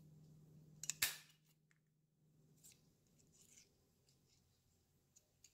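A half-inch handheld circle paper punch snapping through cardstock, one sharp click about a second in, followed by faint rustling as the punch and paper are handled.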